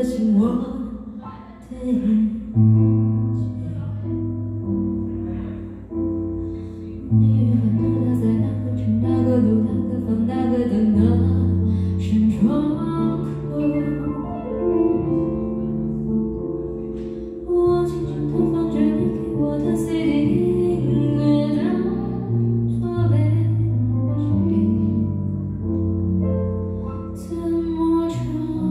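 Live music: a woman singing into a microphone, accompanied by a Nord Electro 6 stage keyboard playing held chords over long low bass notes that change every second or two.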